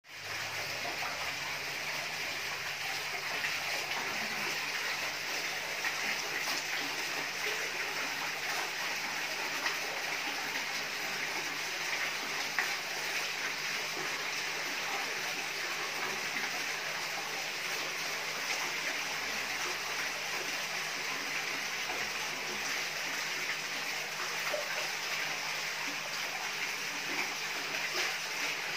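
Water running and splashing steadily into a fish pond, with a faint low hum underneath.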